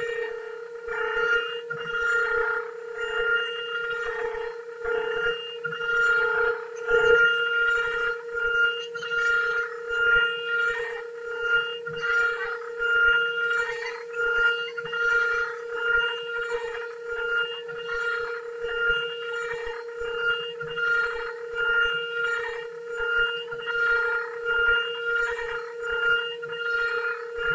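High-speed CNC router spindle whining with a steady tone as it cuts wood on a 4-axis lathe, the cutting sound swelling and fading about once a second.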